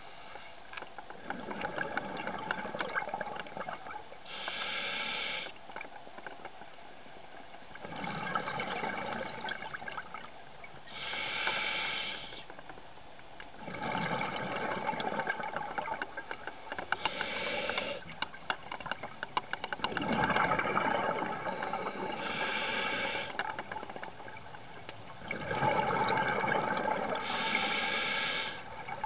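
Underwater scuba breathing through an open-circuit regulator: a short hiss from the demand valve on each inhale, then a longer bubbling rush on each exhale, repeating about every five to six seconds.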